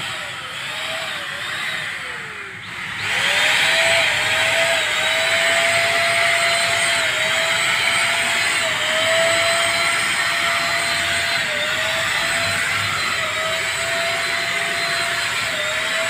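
Multipro ESP-800JY electric spray gun's 350-watt motor running with a steady high whine over rushing air, its pitch dipping briefly every second or two while it sprays anti-leak coating. About two and a half seconds in, the whine falls in pitch and stops, then starts again, louder, a moment later.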